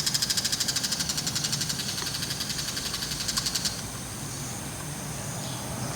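Bull-headed shrike, a mantis held in its bill, giving its rapid chattering ground call: a fast run of harsh high notes, about ten a second, that stops abruptly a little past halfway.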